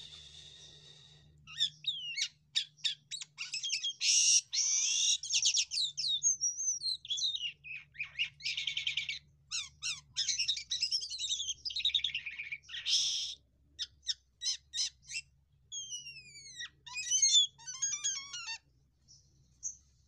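White-shouldered starling (jalak kapas) singing a long, varied song of rapid clicks, buzzy chatter and slurred whistles, ending in falling whistles and a rattling trill shortly before the end.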